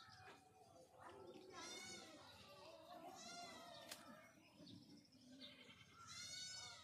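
Three faint, high, wavering animal calls, about a second and a half, three seconds and six seconds in, over faint distant voices.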